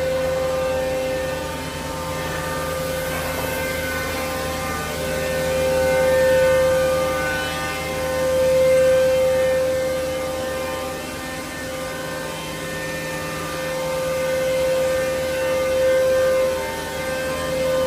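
Rogiers CNC woodworking machining centre running with a steady high whine over a lower hum. The loudness swells up and down slowly several times.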